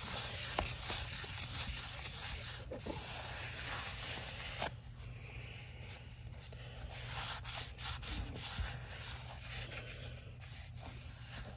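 Paper towel rubbing over the painted metal rim of a lawn mower wheel in quick, uneven wiping strokes; the rubbing lets up for about two seconds midway, then starts again.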